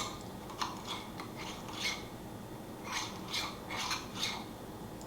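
A small chili jar worked by hand, its top grating in short scratchy crunching strokes: about six in the first two seconds, then four more after a pause.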